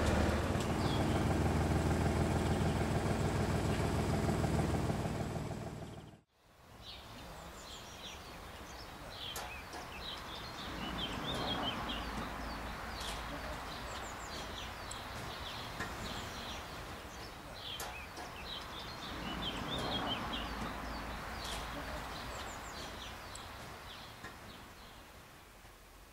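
A forklift's engine running steadily, cut off abruptly about six seconds in. After that, an outdoor background that swells and fades a couple of times, with birds chirping repeatedly throughout.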